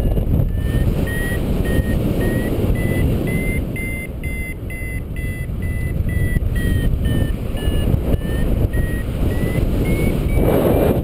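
Paraglider's variometer beeping in a quick regular pulse, its pitch rising, sinking and rising again: the climb tone that signals the wing is going up in rising air. Steady wind rush on the microphone underneath.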